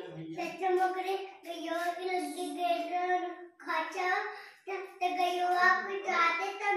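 A child's voice singing a slow tune in long held notes, in phrases broken by short pauses.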